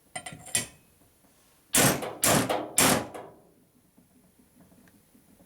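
A couple of light metallic clinks, then three hard hammer blows about half a second apart, each ringing briefly. They are driving a greased tapered roller bearing and its dust shield down onto a motorcycle steering stem.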